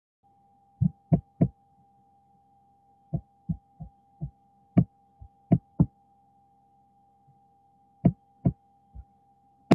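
Keystrokes on a computer keyboard heard as short, dull thumps in irregular runs, over a faint steady high hum.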